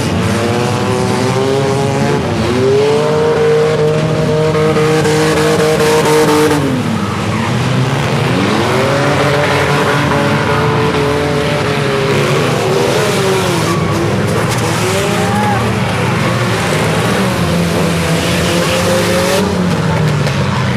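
Compact demolition-derby cars' engines revving hard around a figure-8 track. The pitch climbs and holds for a few seconds, drops about seven seconds in, then climbs again as the cars race on.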